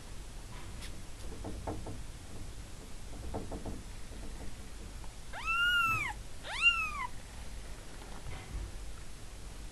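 A newborn kitten mewing twice in quick succession: two high, thin cries that rise and then fall, about halfway through. Fainter, lower mews come before them.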